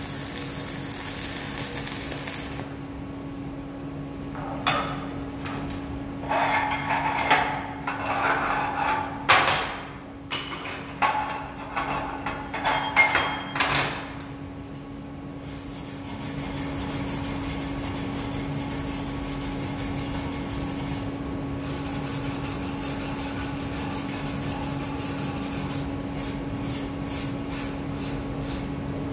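A flux-cored welding arc crackles on steel plate for the first couple of seconds, then stops. Irregular metal strikes and scraping follow as the slag is chipped off the weld bead, and later comes lighter rapid scraping across the plate. A steady machine hum runs underneath.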